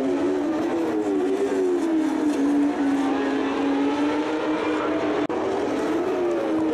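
Moto2 racing motorcycles' Honda 600 cc inline-four engines running at high revs, their pitch rising and falling as the riders shift and brake, with more than one bike heard at once. A brief break in the sound about five seconds in.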